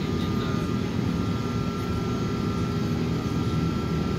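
Steady cabin noise of an Airbus A380 climbing after takeoff: an even low roar of the engines and airflow, with a faint steady high tone over it.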